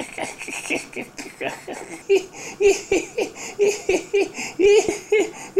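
A man laughing heartily: a long run of short, repeated laughs.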